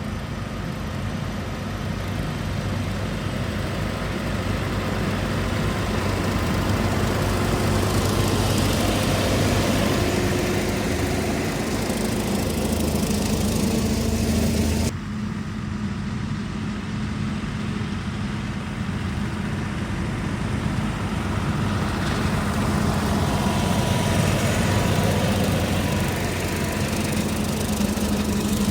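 Massey Ferguson tractor running steadily with a brush hog mowing, a continuous engine drone with the mower's whir over it. The sound changes abruptly about halfway through.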